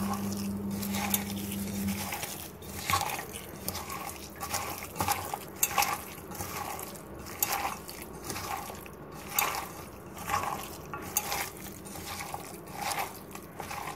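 Hand squeezing and kneading a wet mixture of chopped onion and gram flour (besan) batter in a steel bowl: irregular soft squelches, about one or two a second. A low steady hum cuts off about two seconds in.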